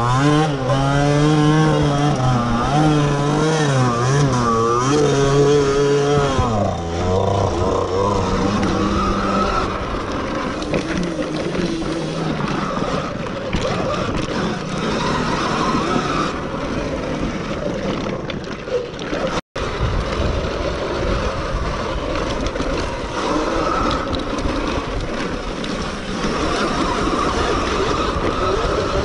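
Sur-Ron 7 kW electric dirt bike being ridden: for the first six seconds or so the motor's whine wavers up and down with the throttle, then a steady rush of wind and riding noise takes over.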